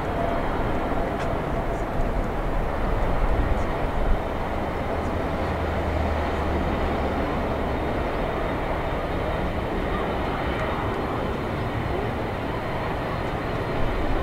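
Boeing 777-300ER's two GE90-115B turbofan engines at takeoff thrust, heard from a distance as a steady, dense jet noise with a low rumble through the takeoff roll. The airliner lifts off near the end.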